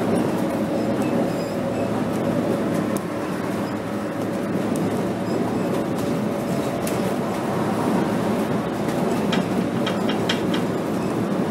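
Cabin noise of a 2007 Scania K270 city bus at motorway speed: a steady drone of engine and tyre noise, with loose fittings rattling and clicking, a cluster of rattles near the end.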